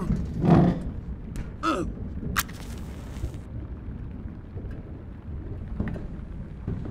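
A dull thump in the dark, then a match struck about two and a half seconds in, flaring with a short hiss, over a low rumbling background.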